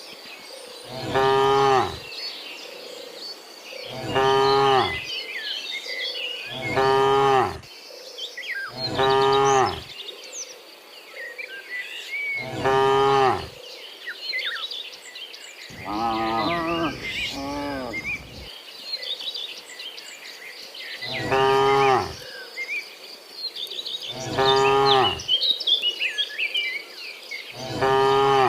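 Cattle mooing over and over, about ten calls each lasting about a second, with two calls overlapping around the middle. Small birds chirp and insects buzz steadily between the calls.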